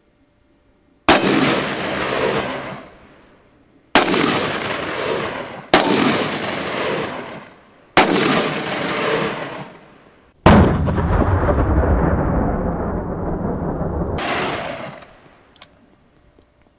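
Five shots from Smith & Wesson Model 500 .500 Magnum revolvers, fired one at a time, each followed by a rolling echo that dies away over a couple of seconds. The fifth shot is the loudest and rumbles on for about four seconds.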